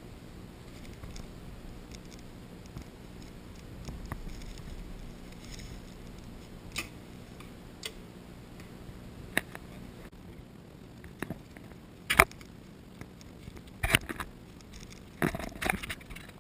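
Several short, sharp snaps over a quiet hiss, spaced a few seconds apart, the loudest about three-quarters of the way in and a quick cluster near the end: compound bows being shot.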